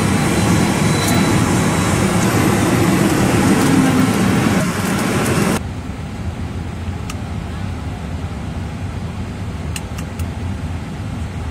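Loud jet engine noise of a taxiing MD-80-series airliner on the apron. About five and a half seconds in it cuts off suddenly to a lower, steady hum inside the cockpit, with a few faint clicks.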